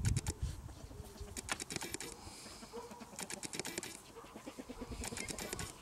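Dog sniffing at the grass in quick runs of short sniffs, a burst about every two seconds.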